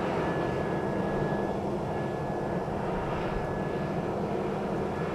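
Farm machinery running steadily: a continuous engine drone with a low hum and a thin, high whine that fades in and out.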